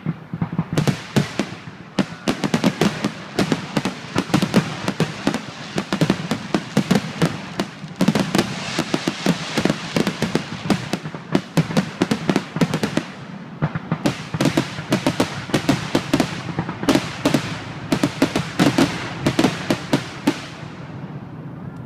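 Fireworks grand-finale barrage: aerial shells bursting in rapid succession, several reports a second, packed close together. There is a brief lull about fourteen seconds in before the volley resumes.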